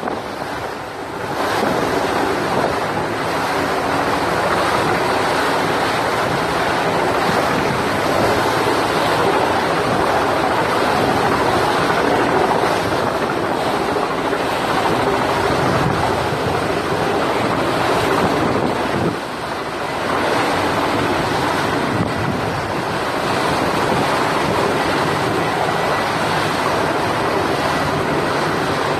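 Steady rushing of strong wind over the microphone, mixed with the wash of the sea. The noise drops briefly about twenty seconds in.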